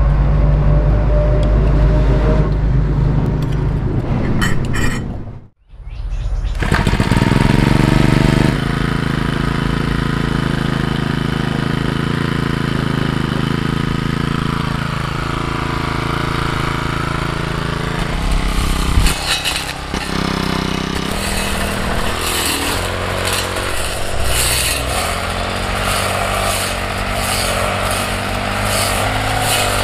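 Petrol brush cutter engine running steadily, with a short break about five seconds in. In the second half it cuts through tall grass and its pitch shifts under the load.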